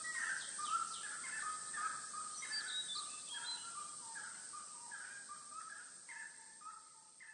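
Birds calling: many short, falling calls, several a second, with a few higher chirps, fading out steadily toward the end.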